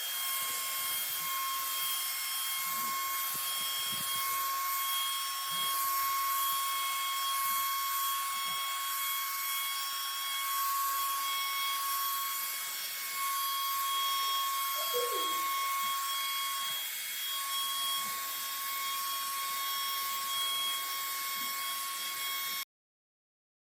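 Spray gun spraying wood polish: a steady airy hiss with a constant high whine, which stops abruptly near the end.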